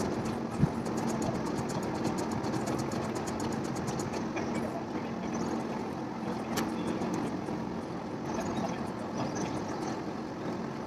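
Steady motor hum over a constant background rumble, with one brief knock about half a second in.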